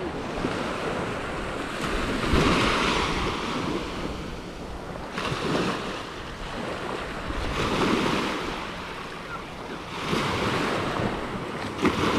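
Surf washing onto a sandy beach, the noise of the waves swelling and ebbing every two to three seconds, with wind rumbling on the microphone.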